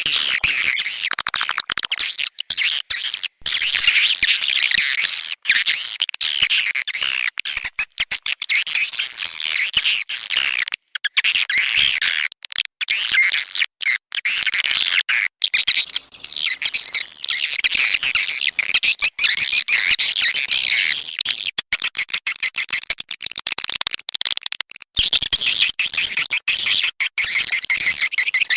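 Swiftlet lure recording: dense, rapid high twittering of edible-nest swiftlets, the call sound played to draw swiftlets into a bird house, with frequent brief drop-outs.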